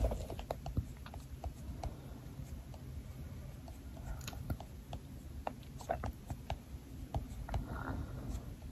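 Soft, irregular mouth clicks and smacks, like chewing, about one or two a second.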